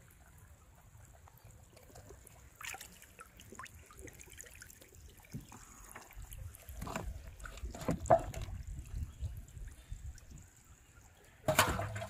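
Small knocks and clicks of a hooked fish being handled and unhooked on wooden boat planks. Near the end there is a louder splash of water in an aluminium pot as a hand goes into it.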